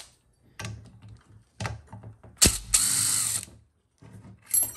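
Ratchet wrench backing out a 7/16 bolt from a TH350C valve body: a few single clicks, then a sharp knock about two and a half seconds in followed by about a second of fast ratcheting, and another knock near the end.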